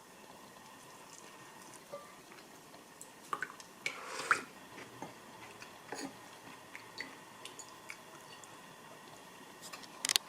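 Quiet room tone with scattered small clicks and knocks, a brief louder rustle about four seconds in and a quick cluster of clicks near the end.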